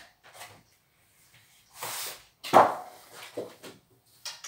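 Large picture cards and a wooden kamishibai case being handled: a sliding rustle, then a thump a little past halfway through, followed by a few softer knocks.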